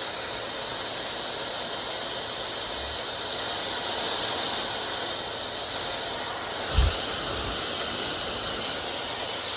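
Hair dryer running steadily, a constant rush of blown air. A brief low thump about seven seconds in.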